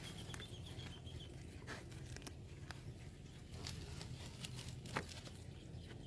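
A pig rooting with its snout in wet soil and grass: scattered soft crunches and crackles of earth and roots being torn up, with one sharper click about five seconds in.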